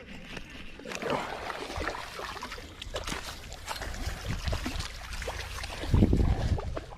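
Shallow creek water splashing and sloshing, with scattered knocks and clicks of handling. A louder low rumble comes about six seconds in.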